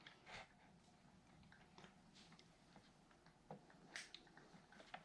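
Near silence, with a few faint, light clicks and taps from small RC car parts being handled and fitted, the clearest about three and a half and four seconds in.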